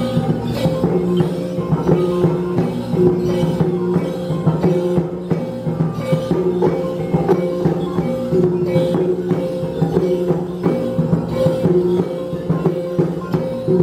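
Traditional Dayak music: a short figure of notes repeats over a steady low tone, with light percussion strokes.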